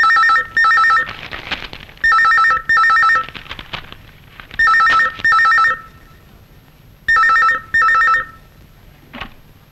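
Telephone ringing in a double-ring pattern: four pairs of rings about two and a half seconds apart, each ring a warbling two-tone electronic trill.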